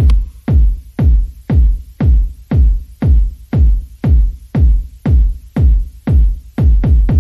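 Electronic dance music with a steady kick-drum beat about twice a second.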